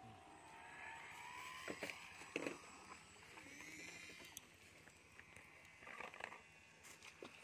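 Electric motor and propeller of a radio-controlled Sea Master seaplane whining faintly in flight, the pitch climbing over the first few seconds. A few sharp clicks are heard, about two seconds in and again near the end.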